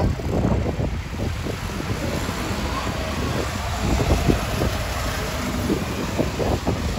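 Wind buffeting the microphone: a steady low rumble with irregular gusts.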